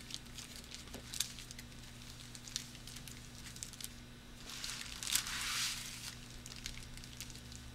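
Paper bed bug trap cards in clear plastic sleeves rustling and crinkling as a stack of them is leafed through by hand. There are scattered light clicks and a longer rustle about five seconds in, over a faint steady low hum.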